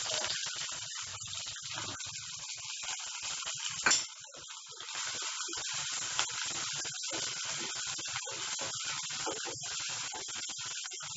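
Sliced shallots sizzling in hot oil in a nonstick kadai while being stirred with a wooden spatula, with one sharp knock about four seconds in.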